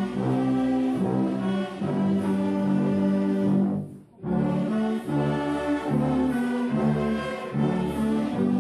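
Brass and orchestral music playing slow, sustained chords, with a short break about four seconds in before it resumes.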